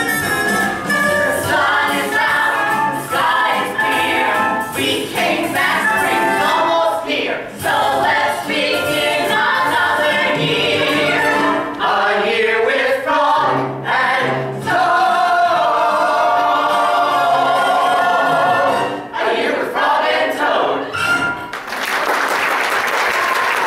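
Stage-musical cast singing show tunes, several voices together. About two seconds before the end the singing gives way to audience applause.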